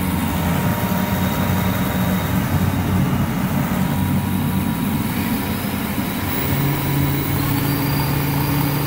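454 Crusader marine big-block V8 engine running steadily under test while the fuel pump relay signal is watched on a meter. About six and a half seconds in its low note steadies and rises a little as engine speed picks up.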